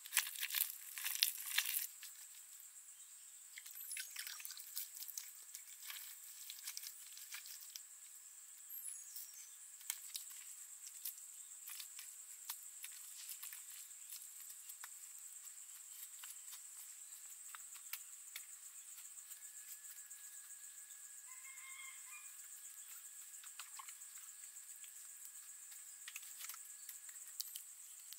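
Insects, crickets by their steady high trilling, keep up a faint continuous drone. Scattered small clicks and rustles sound over it, thickest as crackling in the first two seconds, and a second, lower steady insect tone joins about twenty seconds in.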